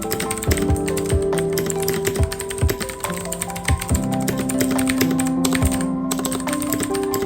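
Fast, continuous typing on a computer keyboard, many quick key clicks, over background music with held notes.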